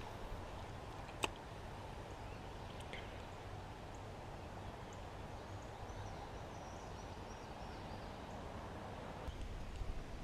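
Steady rush of creek water, with a single sharp click about a second in and faint high chirps partway through.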